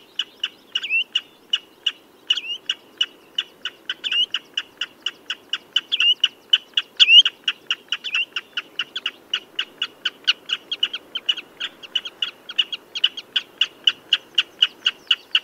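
Common redshank calling: a fast, steady series of short piping notes, about four or five a second, with a few louder slurred notes in the first half.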